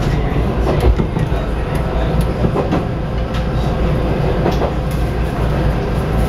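Inside a JR Central 313 series electric train running on the track: a steady low rumble of wheels on rail, with sharp clicks every second or so as the wheels pass over rail joints.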